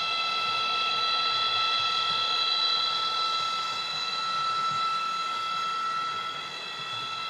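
PIKO ICE 4 H0 model train's sound decoder playing a steady, high-pitched electric whine of the ICE 4's drive, holding one pitch.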